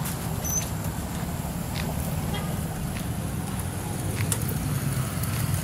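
Steady low rumble of street traffic, with a few faint clicks over it.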